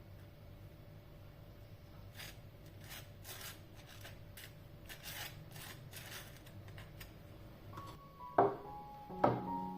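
A run of short rubbing strokes, about one or two a second. Near the end, gentle piano music comes in with two loud notes.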